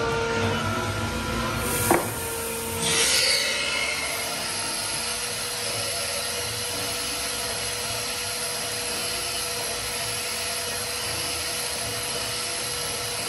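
An MTE BF 3200 bed milling machine running: a steady mechanical hum with an even rushing noise, a sharp clack about two seconds in, and a short louder burst of noise about a second later.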